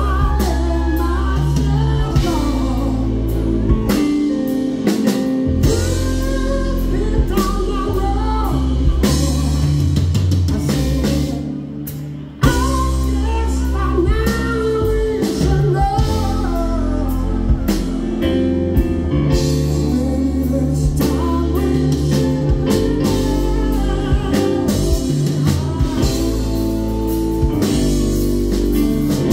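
Live rock band playing: a man sings lead over keyboard, bass and drums. Just before twelve seconds in, the band fades out briefly, then comes back in with a loud hit and the singing resumes.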